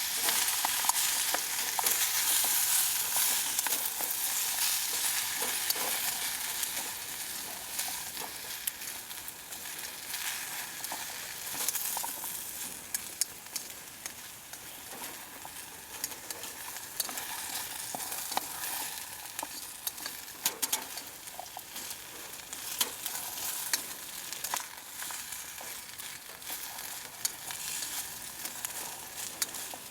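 Food frying in a pan, a steady sizzle with frequent small pops and spits, louder for the first few seconds and then settling lower.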